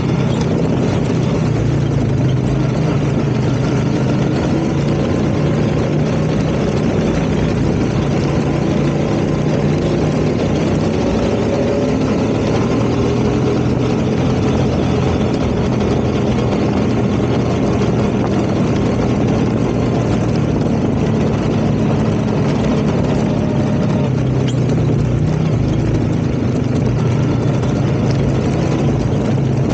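ATV engine running steadily, a constant low hum with no breaks.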